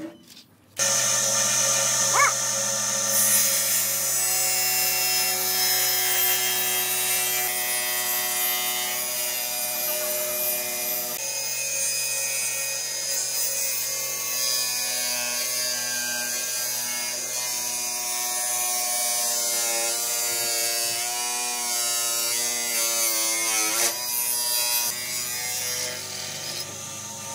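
Electric power tool motor running steadily, starting abruptly about a second in; near the end its pitch wavers up and down as the load changes.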